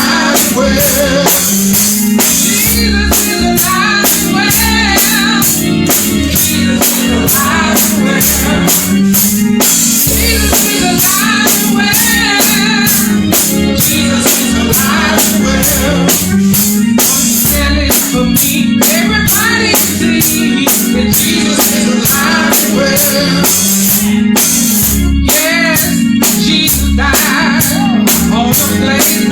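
Church praise and worship music: a drum kit keeps a steady beat under singing.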